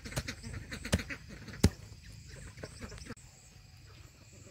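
Knife chopping food on a cutting board: three sharp chops about three-quarters of a second apart in the first half, the last one the loudest.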